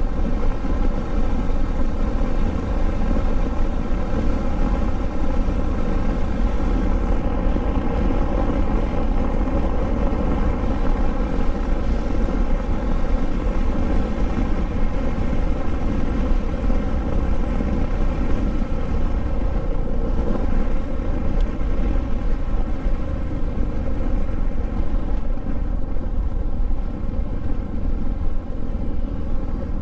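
Motorcycle engine running at a steady cruising speed on an open highway, an even, unchanging drone with wind and road rumble underneath.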